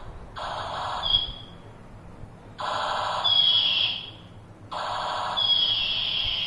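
A child's toy laser gun playing its electronic sound effect three times in a row. Each burst is a buzzy electronic tone topped by a high whistle that slides slightly downward; the third lasts longest.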